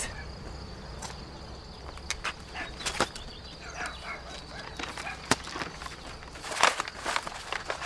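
Outdoor garden ambience: faint bird chirps and a few sharp clicks over a low steady hum.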